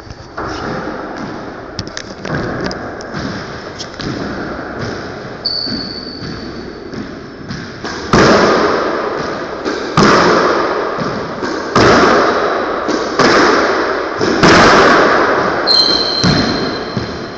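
A squash rally: the ball smacks off racquets and the court walls every second and a half or so, each hit echoing in the enclosed court, with the hits much louder from about halfway through. Twice a short high squeak, typical of sneakers on the wooden floor.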